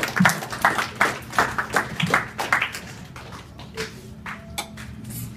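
Audience applauding a comedian's introduction, the claps thinning out after about three seconds.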